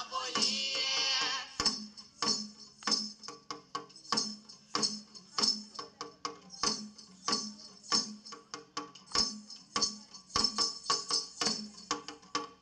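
Kerala folk percussion for a kaliyattappattu song: drums beaten together with metal jingles in a steady rhythm of about two to three strokes a second. A sung chorus stops about a second and a half in, leaving only the percussion.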